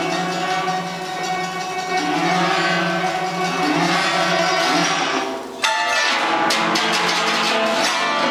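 Guzheng (Chinese plucked zither) playing, with ringing plucked notes. About five and a half seconds in, the sound briefly drops away, then a sudden loud strike opens a passage of rapid, sharp struck notes.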